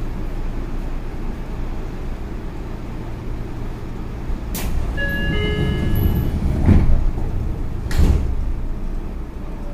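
Train doors closing on a Seibu 6000-series commuter train, heard from inside the car. A click comes about halfway through, then a short chime of several tones, then two heavy thumps as the doors shut, over the steady low hum of the stopped train.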